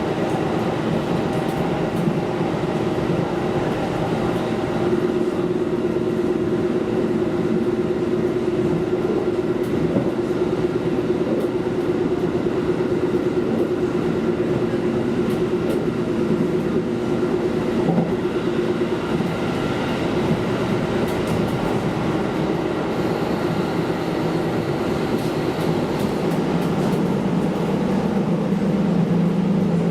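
KiHa diesel railcar running along the line: a steady engine drone with the rumble of the wheels and a few sharp clicks. Near the end a lower engine note comes in and grows a little louder.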